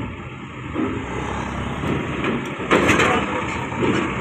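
Diesel engine of a coach bus running as the bus drives off a ferry ramp and passes close by, with a short louder burst of noise about three seconds in.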